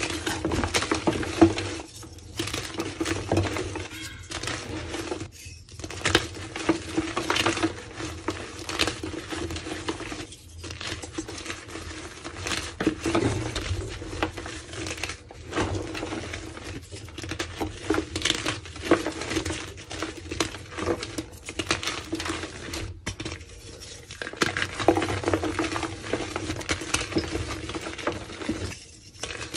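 Hands crushing and crumbling blocks of reformed gym chalk: dense, crunchy crackling and powdery crumbling that comes in bursts, with brief pauses between handfuls.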